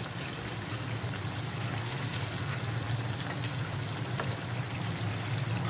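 Watery spinach curry bubbling in a pot while a wooden spatula stirs through it, with a couple of light clicks of the spatula about three and four seconds in, over a steady low hum.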